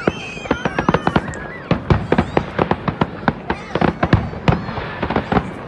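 Fireworks going off: rapid, uneven bangs and cracks several times a second, with a few high whistling glides near the start.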